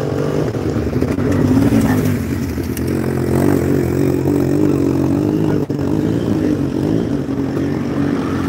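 Motocross sidecar outfits' engines running on a dirt track, revving up and down as they pass.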